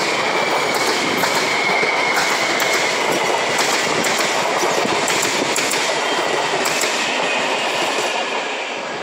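Train passing close by, its wheels clattering over the rails with a faint high whine that slides slowly down in pitch; the noise eases off near the end.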